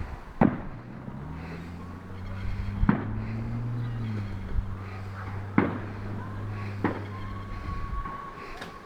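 Distant fireworks exploding: four sharp bangs a couple of seconds apart, over a low droning hum that rises briefly in pitch in the middle.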